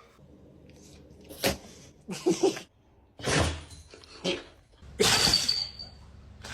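A puppy sneezing several times, short sharp bursts about a second apart, the loudest near the end.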